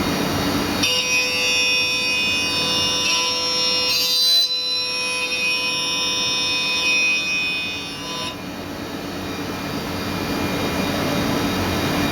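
Mikron HSM 600 U high-speed milling machine running with a steady high-pitched whine of several tones. The whine starts about a second in and cuts off suddenly after about eight seconds, leaving a broad steady rushing noise.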